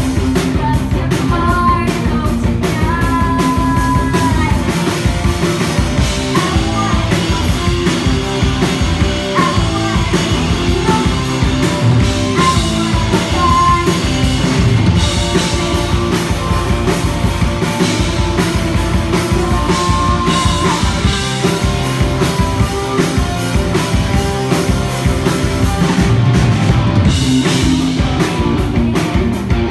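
Live rock band playing a song, with a driving drum kit and singing over the band.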